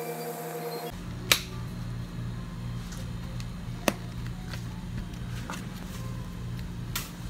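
Low background music with a steady pulsing beat. Three sharp plastic clicks stand out over it, about a second in, near the middle and near the end, as plastic drink cups and dome lids are handled on a counter.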